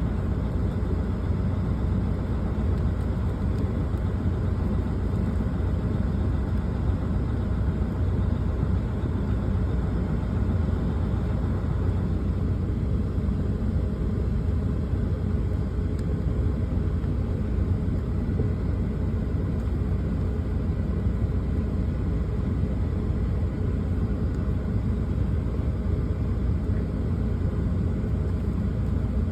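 Steady low rumble of a truck running, heard from inside its cab.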